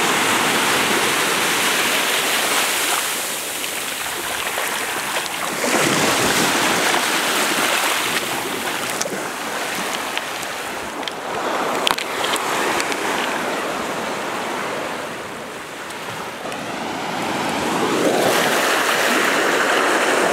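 Small waves lapping and washing up a sandy beach, the surf rising and falling every few seconds.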